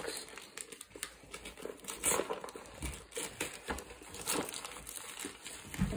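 Wrapping paper crinkling and tearing in irregular crackles as a present is unwrapped by hand, louder about two seconds in.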